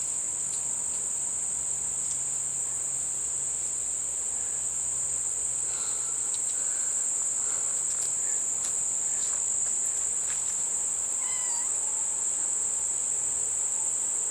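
Steady high-pitched insect chorus, typical of crickets trilling, with a few short chirps near the end.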